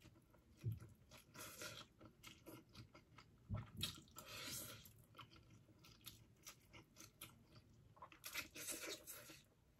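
Close-up eating of spicy noodles: three slurps of noodles drawn in off a fork, with chewing and small clicks in between.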